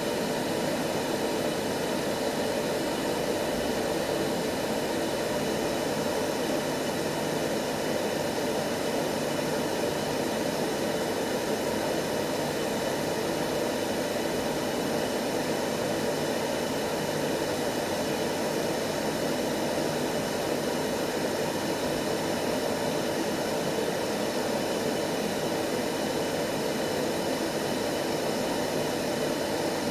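Steady white noise played as a baby sleep aid: an even, rushing noise, fullest in the lower middle range.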